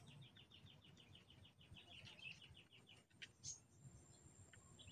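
Faint bird trill: a rapid, even run of short high notes, about nine a second, lasting nearly three seconds.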